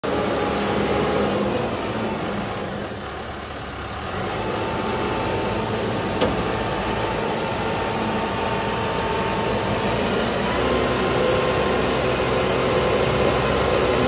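Self-loading concrete mixer's engine running steadily while its loader bucket is raised hydraulically, with a thin steady whine over it. A single sharp click comes about six seconds in, and the note steps up slightly about ten seconds in.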